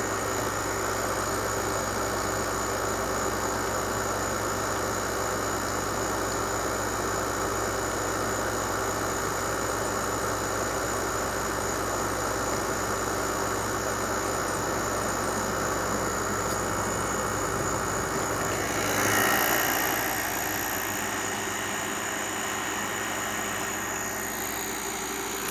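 Midea MAWO5M1WBL window air conditioner running, heard from its outdoor side: a steady machine hum. The low part of the hum fades away about three-quarters of the way through.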